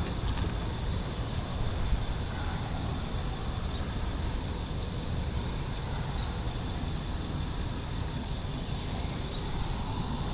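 Outdoor background: a steady low rumble under short, high chirps that repeat about every half second, over a faint steady high hum.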